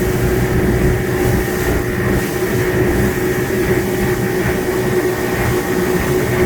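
Boat engine running steadily, a constant hum over a low rumble.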